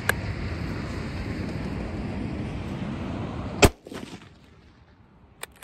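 One shot from a bolt-action Mauser rifle firing a steel-cased 8mm Mauser (7.92×57mm) Romanian surplus round, a sharp, very loud crack a little over three and a half seconds in. A steady rushing noise runs up to the shot, and two faint clicks follow near the end.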